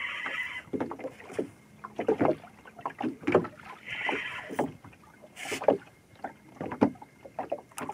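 Water slapping irregularly against the hull of a small boat, with two short bursts of a fishing reel whirring, at the start and about four seconds in, while a hooked ray is pumped up from the bottom.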